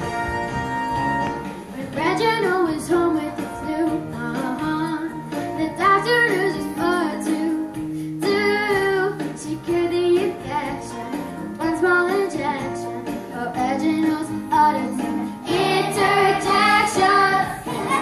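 A girl singing a song into a microphone over backing music, after about two seconds of instrumental introduction.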